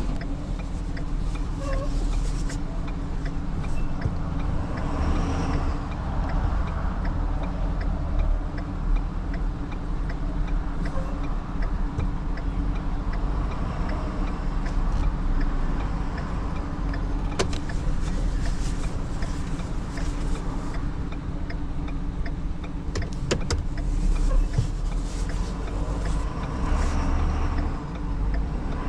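Truck engine running steadily at a low idle-like speed, with a few scattered clicks over it.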